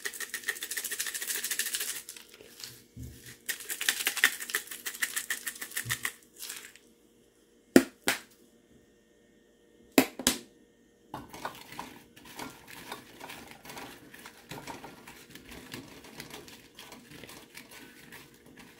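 A spice jar of onion powder shaken over cut okra in a bowl: two runs of fast rattling ticks, each about two seconds long. Near the middle come two pairs of sharp clicks, then for the second half a quieter crackly rustling of hands tossing the seasoned okra pieces in the bowl.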